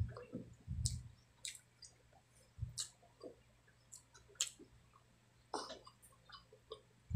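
Close-miked eating of sticky braised pork hock: scattered wet clicks and smacks of chewing and of fingers pulling the meat apart.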